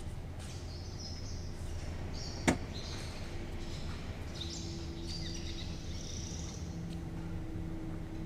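Steady low background hum with faint high squeaks, broken by a single sharp click about two and a half seconds in.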